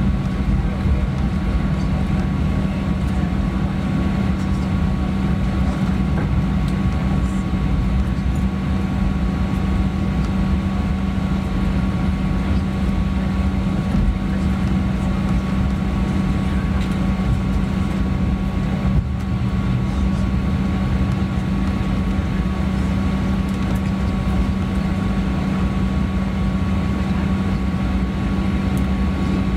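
Steady cabin noise inside a Boeing 737-900 after landing, with the jet engines and air conditioning running. It is an even rumble with a low hum and a faint higher tone.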